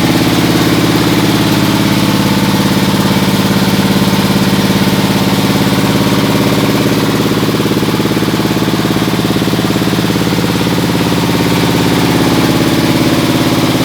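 Metal shredder machine running steadily at a constant speed, a loud, even engine-like drone with no change in pitch.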